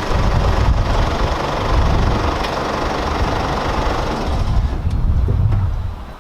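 A car engine running, heard as a dense low rumble that fades out near the end.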